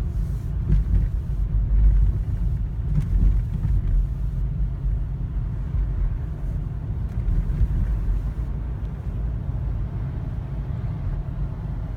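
Wind buffeting the microphone in a snowstorm: a low rumble that rises and falls in gusts.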